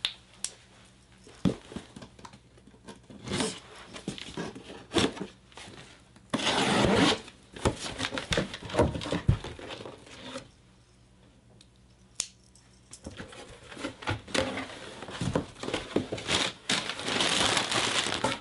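A large cardboard box being unpacked: tape torn and flaps pulled open, with scattered bumps and scrapes, and the loudest tearing about a third of the way in. In the last third comes steady crinkling of brown kraft paper packing and the pillow's plastic wrapping as the pillow is lifted out.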